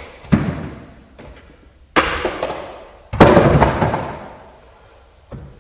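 Plastic aerobic step risers being pulled off the step and set down on the floor: three loud hollow clunks over about three seconds, the third the loudest, each trailing off over about a second, then a faint knock near the end.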